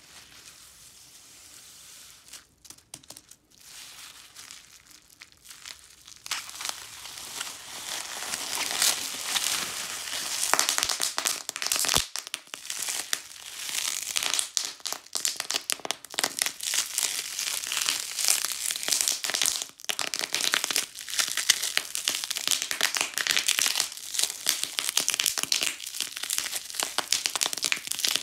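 Bubble wrap being wrung and crushed by hand, its bubbles popping in a dense crackle of sharp snaps. It starts as soft rustling and builds to thick, continuous popping from about six seconds in.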